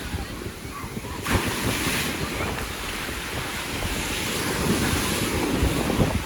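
Sea waves breaking and washing up the shore, a wave's rush swelling about a second in, with wind buffeting the microphone.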